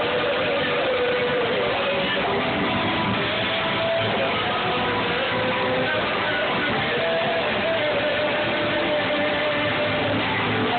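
Live church worship music from a band with strummed guitars, loud and steady, with a wavering melody line on top.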